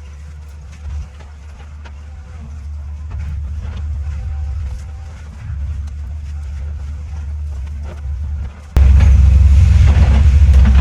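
Heavy diesel land-clearing machinery running steadily, a deep engine rumble with scattered clanks and ticks. About nine seconds in, the sound jumps suddenly much louder and harsher, with a dense run of cracking and grinding.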